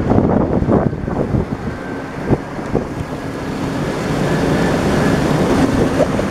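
Water splashing and churning around the front tyre of a 4x4 SUV driving through a shallow river, with the engine running underneath and wind buffeting the microphone.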